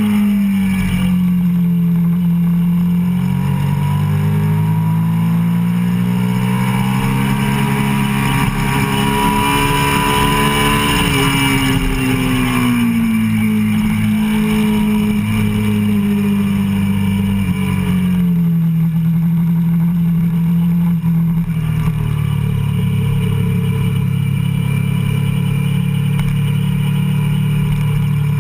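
Sport motorcycle engine heard from a camera mounted on the bike, running hard on track: the pitch dips near the start, climbs steadily for several seconds as it pulls through a gear, falls off again, then holds lower and steadier for the rest.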